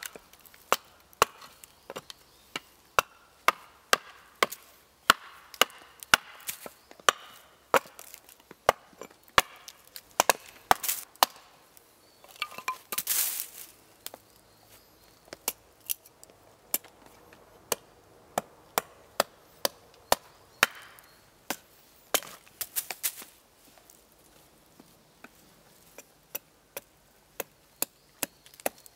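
A big axe hewing a wooden spoon blank held upright on a chopping stump: a long series of short, sharp chops at about one or two a second, irregularly spaced, with a longer rasping sound near the middle.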